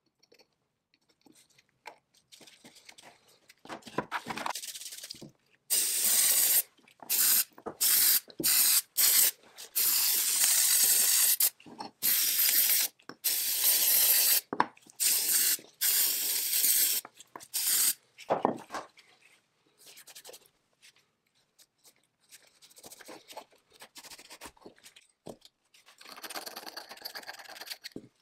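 Repeated short bursts of pressurized spray hissing, about a dozen of them over some twelve seconds, each starting and stopping sharply, with softer handling noises before and after.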